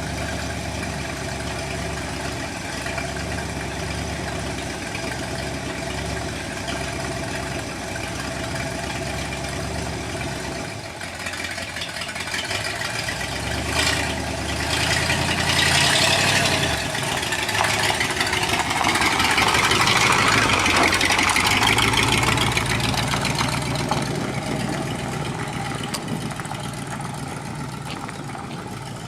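1958 Chevrolet Apache pickup's engine running at a steady idle, then growing louder and rougher from about halfway through before easing off again near the end.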